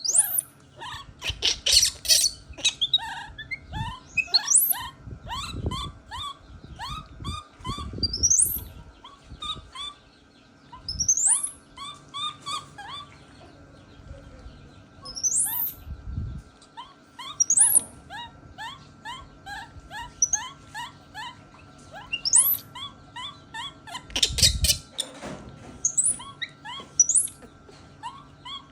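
Many short, high-pitched chirping and squeaking animal calls, some sweeping sharply upward, overlapping at different pitches, with occasional low thumps and rustles.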